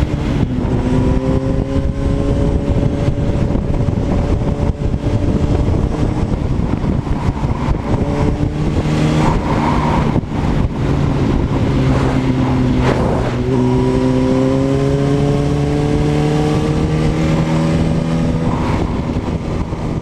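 Yamaha R1 inline-four engine pulling under steady throttle while riding, its pitch climbing slowly, easing off for a few seconds midway, then climbing again, over a constant rush of wind and road noise.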